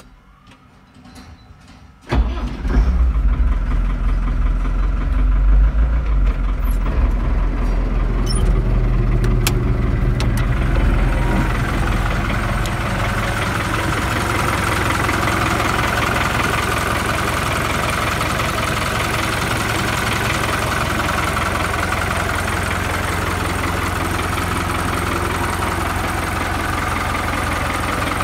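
Fiat Fiatagri 80-90 DT tractor's four-cylinder diesel engine starting up suddenly about two seconds in. A heavy low rumble at first eases after about ten seconds into a steady idle.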